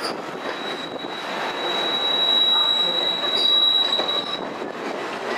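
Passenger train's steel wheels squealing against the rails on a curve: a steady high-pitched squeal over the rumble of the rolling cars, stopping about four seconds in.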